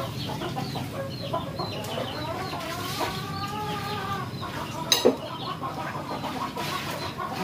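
Chickens clucking in repeated, drawn-out calls. A single sharp clink about five seconds in is the loudest sound.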